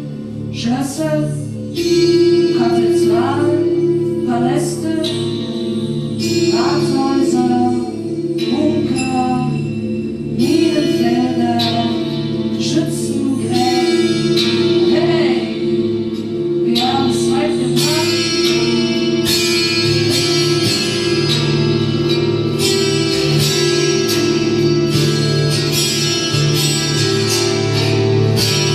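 Live experimental music: a sustained low drone with a voice sliding up and down over it in the first half, and repeated sharp metallic strikes from the gongs growing denser in the second half.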